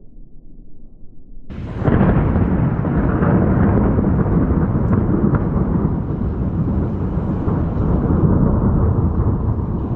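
Thunder: a faint low rumble, then about a second and a half in a sudden loud thunderclap that rolls on as a long rumble.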